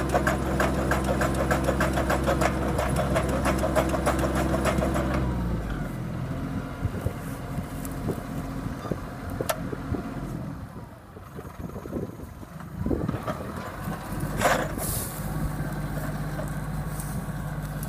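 Mini tractor engine running under load, driving a homemade hydraulic post-hole auger (MR125 hydraulic motor) boring into mixed soil, with a fast regular ticking. About five seconds in the engine note drops as the auger is raised out of the hole, giving way to irregular knocks and clatter and one sharp louder knock, before the engine settles back to a steady run near the end.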